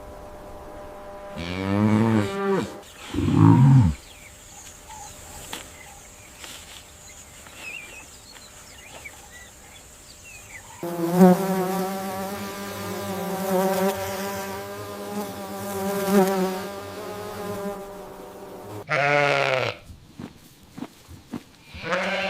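Goats bleating: two short bleats near the start, a long drawn-out wavering bleat lasting several seconds in the middle, then two more short bleats near the end.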